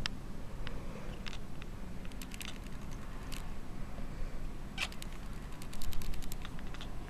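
Cat making strange clicking, creaking noises: scattered single clicks and quick runs of them, loudest about six seconds in.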